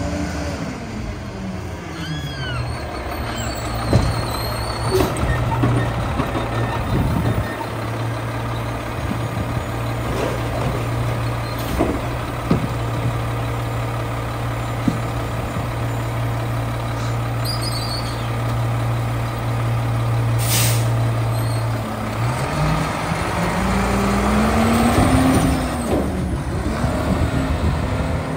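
Mack LR garbage truck slowing to a stop with a brief brake squeal, then its engine idling steadily while a recycling tub is emptied into the side-loading hopper with a few knocks and bangs. About twenty seconds in a sharp air-brake release hiss, then the engine revs up as the truck pulls away.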